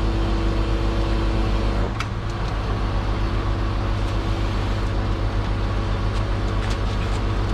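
Crane truck's engine running steadily while the crane is worked, with a steady whine that cuts off with a click about two seconds in.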